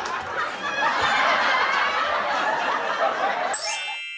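Canned audience laughter. Near the end it gives way to a rising, bright chime sound effect that rings on and fades.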